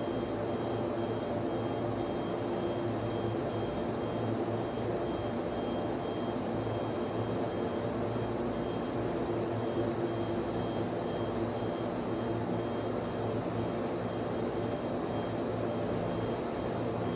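Server room cooling fans and network switches running with a steady, even drone and hum, with a faint high-pitched whine that keeps cutting in and out.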